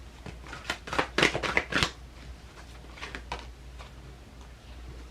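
Deck of oracle cards being shuffled and handled: a quick run of papery card flicks about a second in, then a few softer ones later.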